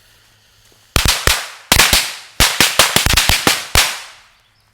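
A pack of Warpath firecrackers going off: about a second in, a rapid, irregular string of some fifteen sharp bangs that lasts nearly three seconds, with gaps between short clusters.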